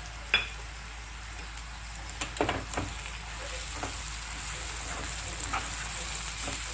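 Ivy gourd and grated coconut sizzling in oil in a kadai while a perforated ladle stirs them, its strokes scraping and clinking against the pan. A sharp clink comes just after the start, and a cluster of scrapes follows about two and a half seconds in.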